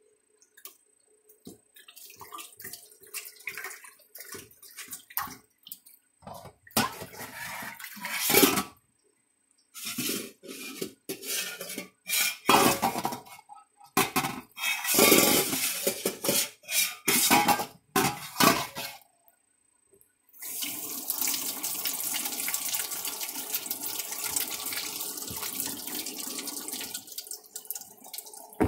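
A macaque splashing water in a stainless steel bowl in a metal kitchen sink, in short irregular spells. About twenty seconds in, the kitchen tap comes on and runs steadily into the sink.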